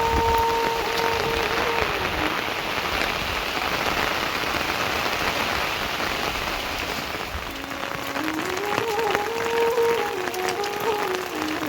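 Steady rain falling, with a melody of background music held at the start and moving up and down in steps in the second half.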